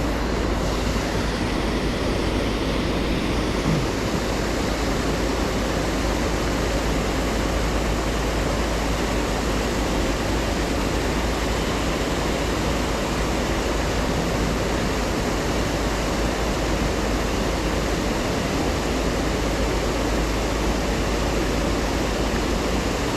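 Creek waterfall: a steady, even rush of falling water.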